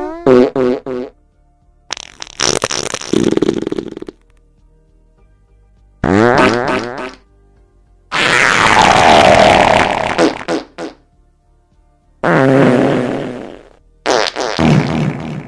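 A string of about six separate farts with short silent gaps between them. They range from a few quick spurts at the start to a long one of about three seconds in the middle, which is the loudest.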